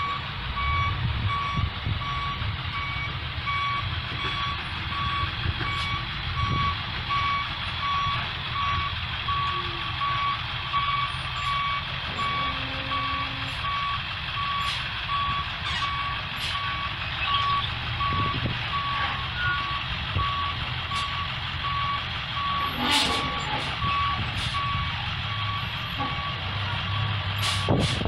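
Backup alarm beeping steadily in an even repeating pattern while a 1997 International 3800 school bus reverses, over the low steady running of its T444E 7.3-litre V8 turbodiesel. A couple of sharp knocks near the end.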